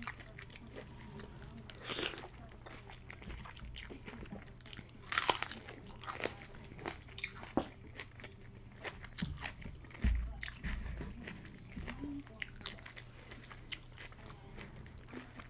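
Close-miked eating of instant pho with shrimp, green onion and bean sprouts: crunchy biting and wet chewing with many small mouth clicks, and two louder bursts about two and five seconds in. A steady low hum sits underneath.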